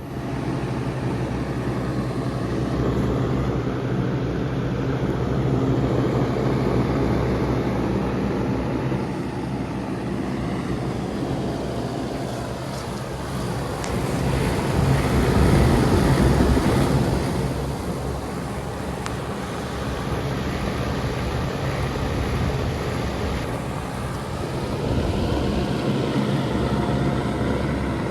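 Outdoor air conditioner condenser unit running: a steady low hum under the rush of its fan, swelling and easing a little.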